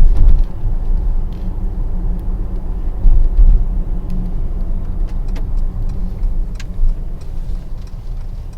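Mercedes-AMG GLC 43's twin-turbo V6 and tyres heard from inside the cabin while driving in comfort mode, a steady low rumble with the exhaust valves closed. A few faint clicks sound over it.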